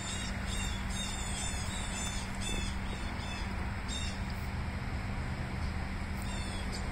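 A small bird chirping: short high notes repeated about twice a second, pausing after about four seconds and coming back briefly near the end, over a steady low hum.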